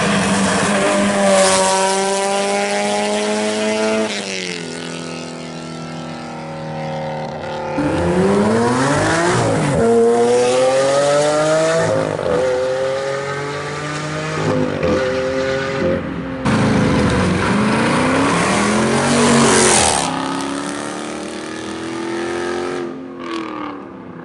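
Several performance cars accelerating hard one after another. Each engine's pitch climbs as it revs up, then drops back at the gear changes, and the sound cuts abruptly from one car to the next several times.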